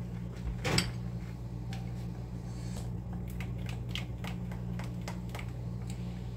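A bowl of melted chocolate ganache knocked down onto a board about a second in, then a spoon stirring it with light clicks and scrapes against the plastic bowl. A steady low hum runs underneath.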